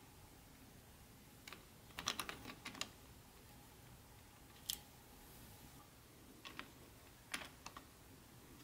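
Wheels of a Bachmann HO-scale model freight car clicking on the track as the car rolls slowly past. The clicks are light and scattered, with a quick run of them about two seconds in and another near the end.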